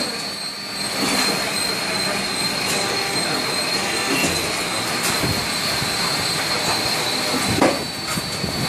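CNC roll forming machine running: a steady metallic working noise with a high steady whine, and a few sharp knocks, the loudest a little before the end.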